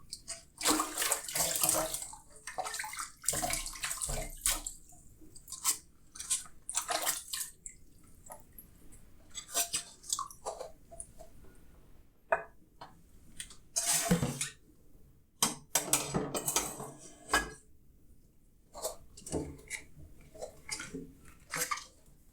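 Water splashing and running in a sink during hand dishwashing, coming in irregular short bursts with brief pauses between them, and a sharp knock about two-thirds of the way through.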